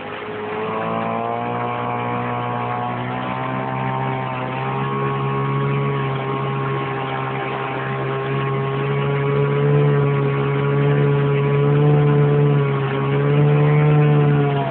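Small boat motor running steadily at a fairly constant speed, its pitch drifting slightly and growing a little louder in the second half.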